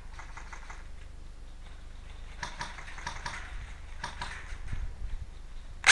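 Faint distant airsoft gunfire: several short bursts of rapid, light clicking shots near the start, in the middle and near the end.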